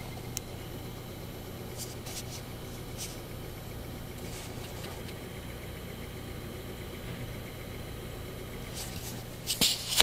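Desktop computer running with a steady low hum, with faint irregular clicks from a WD Caviar 1 TB hard drive's head unit, a ticking that comes only while the drive sits idle and stops when it reads or writes. A louder cluster of clicks comes near the end.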